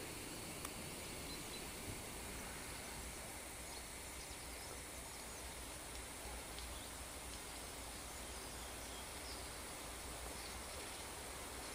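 Quiet rainforest ambience: a faint, steady high hiss with a couple of soft clicks about a second and two seconds in.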